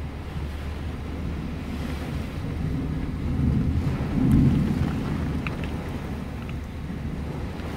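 Thunder rumbling, swelling to its loudest about four seconds in and then easing off.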